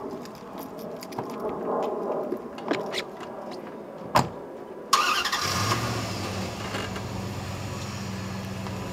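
A full-size van's door shuts with a single knock about four seconds in, then its engine cranks and catches about a second later and settles into a steady idle.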